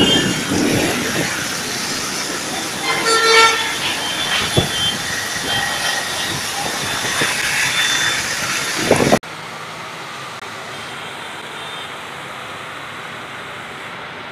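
Motorbikes and cars passing on a rain-soaked road, tyres hissing through the water, with a vehicle horn sounding for about a second around three seconds in. About nine seconds in the sound cuts abruptly to a steady, quieter hiss of falling rain.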